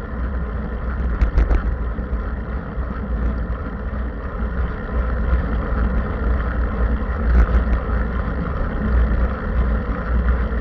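Wind rushing over the microphone of a camera riding on a moving road bicycle, with a steady low rumble of tyres on asphalt. A few brief clicks or knocks come about a second in and again past the seven-second mark.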